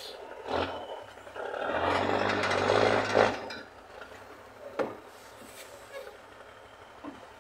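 Loaded log truck's engine on a steep climb: a short burst about half a second in, then a loud swell of engine noise with a hiss for about two seconds, dropping back to a low running sound with a single knock near the five-second mark.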